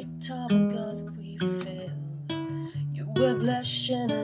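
Nylon-string classical guitar fingerpicked in a slow pattern of single notes and chords, each note ringing on after it is plucked. A woman's singing voice comes in softly near the end.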